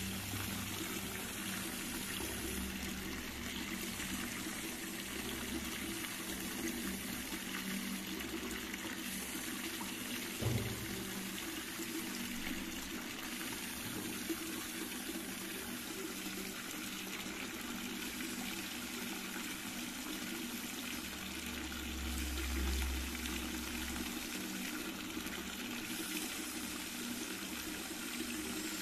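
Steady sound of reservoir water against the dam embankment, with a single knock about ten seconds in and a low rumble swelling briefly near the end.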